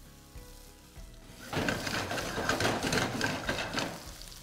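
Finely chopped ginger sizzling in hot ghee with cumin seeds and dried red chilli: a dense crackling fry that starts about a second and a half in and fades near the end.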